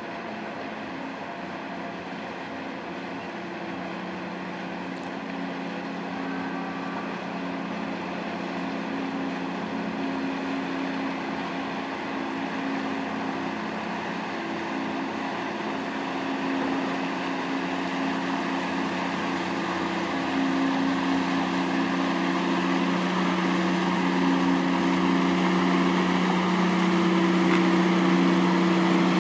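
Engines of a catamaran marine survey vessel running with a steady low drone of several held tones, growing steadily louder as the ship draws close.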